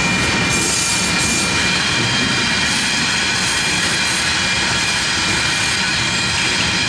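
Coal train's open-top cars rolling past, a steady loud rumble of steel wheels on rail with a thin steady high tone over it.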